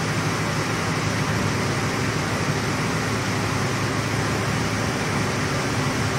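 Steady hum and hiss of a welding set running, an even noise with a low hum underneath and no breaks.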